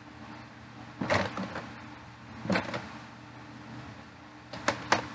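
Short clicks and knocks of small objects being handled, three times, the last a quick double click, over a steady low hum.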